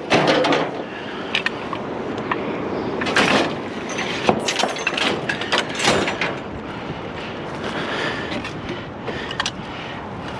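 Bicycle frames being loaded and shifted onto a scrap pile: scattered clanks, knocks and rattles of metal tubing striking other metal, with a few louder strikes partway through.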